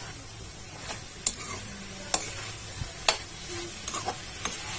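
A spoon stirring beans and potato sabzi in a pan, clicking against the pan about once a second over a faint sizzle.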